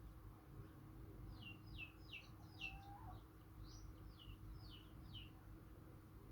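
Faint chirping of small birds: a run of about a dozen quick, falling chirps from about a second in until near the end, over a low steady hum.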